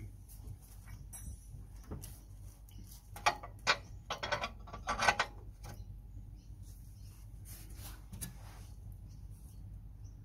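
A steel 17 mm spanner clinking and rattling on a suspension bolt as it is fitted and worked by hand: a quick cluster of sharp metallic clicks a few seconds in, then a single click later.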